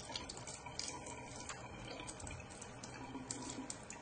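Laboratory tap running into a sink, the stream splashing over a glass measuring cell as it is flushed with tap water.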